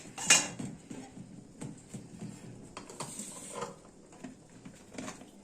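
A spoon knocking and scraping against a pot of milk, with a sharp clink about a third of a second in, then softer scattered clicks and scrapes.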